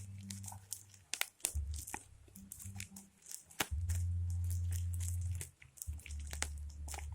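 Plastic parcel packaging being torn open and crumpled by hand: a run of sharp crackles, rips and crinkles, with a low rumble underneath at times, loudest around the middle.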